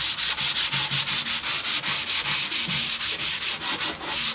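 Hand sanding: sandpaper on a flat block rubbed quickly back and forth over dried filler on a wooden subwoofer box to level it. It makes a rhythmic scratchy hiss of about five strokes a second.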